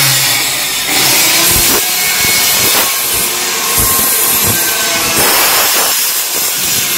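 A power tool running continuously on a carpentry site, a loud rasping hiss like a saw cutting wood, with a faint shifting whine and irregular low knocks throughout.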